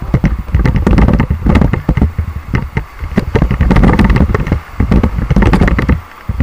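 Wind buffeting the camera's microphone in gusting low rumbles, with irregular splashing of river water as the raft is paddled.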